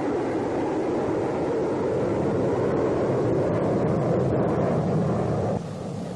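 Boeing B-47 Stratojet's turbojet engines running: a loud, steady rushing noise on an old film soundtrack, building slightly. It drops abruptly to a quieter level about five and a half seconds in.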